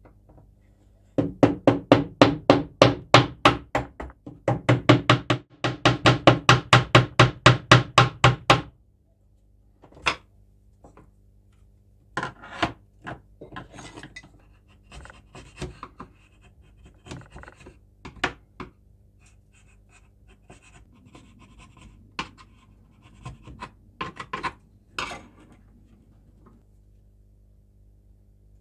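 A hand file rasping back and forth on the end of a square wooden hammer-handle blank, in fast even strokes of about four a second, with a short break about four seconds in. After this come scattered lighter knocks and scrapes of the wood and tools being handled.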